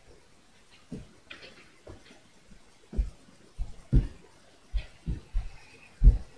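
Irregular dull thumps and knocks right by the microphone, about eight over a few seconds, growing louder after the first few, made by a person moving about and bumping close to it.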